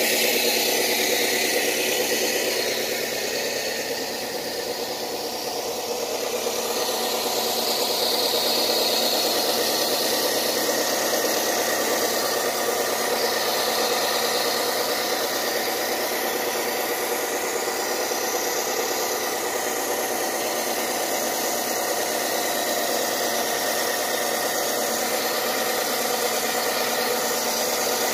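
Motor of a rail-mounted rock-cutting saw running steadily, a continuous even drone that eases slightly about four seconds in before picking back up.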